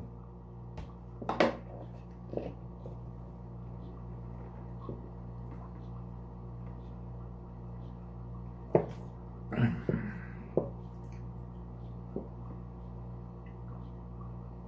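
Drinking water from a plastic bottle: a few short, separate gulping and handling sounds over a steady low electrical hum.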